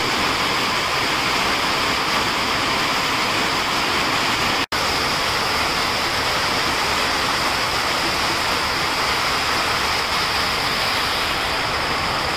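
Heavy downpour of rain: a loud, steady rush of rain pouring onto the yard and running off the porch roof, cut off for an instant about five seconds in.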